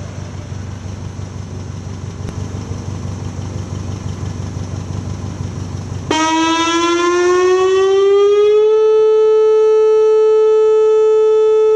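Whelen WPS-2810 electronic outdoor warning siren beginning its tone in a test of the public warning system. After about six seconds of low steady background noise, the tone cuts in suddenly, glides upward for about two and a half seconds, then holds one steady pitch, loud.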